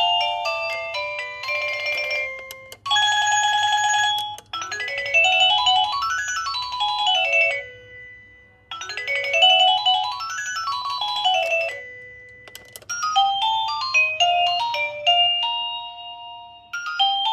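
Electronic doorbell chime playing through its built-in tunes, one after another. A short beeping melody is followed by a warbling tone about three seconds in. Then the same quick rising-then-falling run of notes plays twice, with more bright electronic tunes after it.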